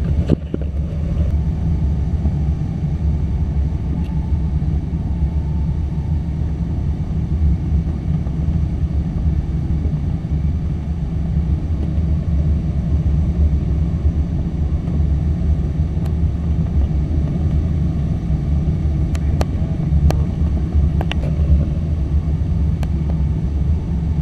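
Steady low rumble of airflow around a two-seat glider's cockpit during the landing approach and touchdown, with a handful of sharp clicks and knocks in the last third.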